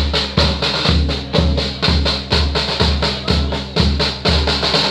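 Music with a steady drum beat, a bass-drum kick about twice a second.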